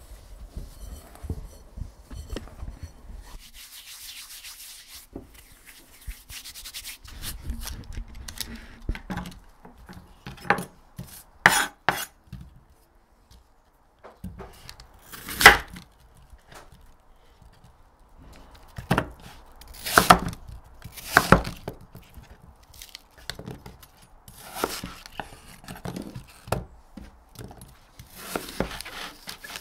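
Fingers rubbing and mixing flour in a glass bowl. Then a kitchen knife cuts apple on a wooden chopping board, with scattered sharp knocks of the blade on the board, the loudest about halfway through.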